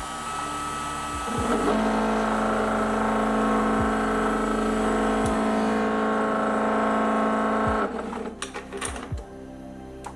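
A small workshop machine's electric motor, from the mini lathe or mill, runs with a steady hum. It comes on about a second in and stops shortly before the end, after which there are a few light clicks.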